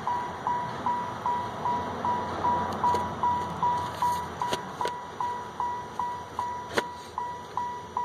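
Vehicle warning chime dinging steadily, a single high tone repeating about two and a half times a second, with a sharp click about seven seconds in.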